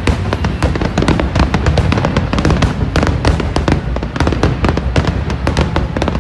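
Fireworks display going off in a dense, continuous barrage of rapid bangs and crackles, many per second, with music playing alongside.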